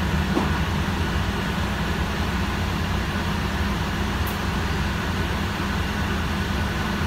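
Steady low rumble of drivetrain and road noise heard inside the passenger cabin of a Heuliez GX437 hybrid articulated city bus as it rides along.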